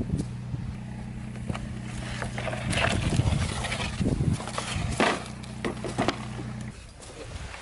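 An engine running steadily at one even pitch, then cutting off suddenly near the end, with scattered knocks and scrapes over it.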